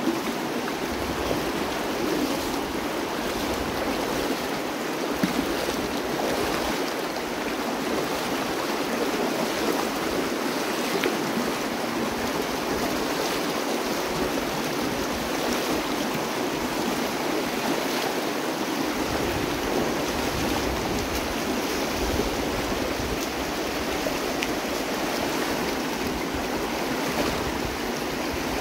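The North Fork of the Virgin River rushing steadily over a shallow, rocky riffle.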